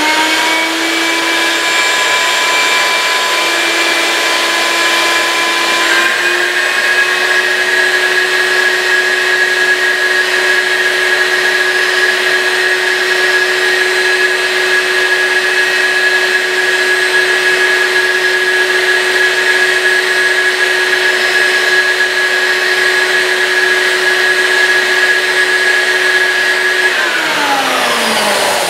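Shop vacuum running as the suction source of a vacuum-forming table, a loud steady whine. About six seconds in its pitch steps up as the heated plastic sheet is lowered and seals over the table. Near the end it is switched off and winds down, falling in pitch.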